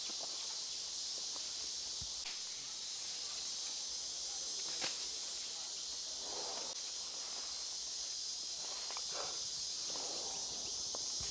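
Steady, high-pitched drone of a tropical forest insect chorus, with a few faint clicks now and then.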